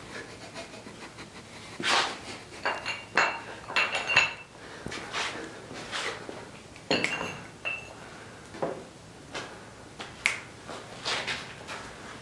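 Steel horseshoe being handled and worked in the hands for a braced bend: a string of irregular short knocks and clinks, a few of them with a brief metallic ring.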